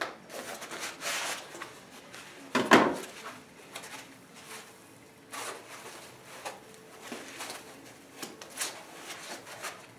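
A small cardboard box and its paper packing being handled: the box opened and its paper inside rustled and unfolded, with a sharp knock about three seconds in as the box is set down on the table.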